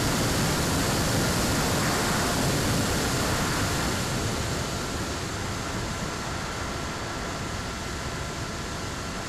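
Steady rush of wind and propeller noise from an electric-powered Skywalker FPV plane in cruising flight, heard on its onboard camera's microphone, with a faint steady whine through it. It eases a little from about four seconds in.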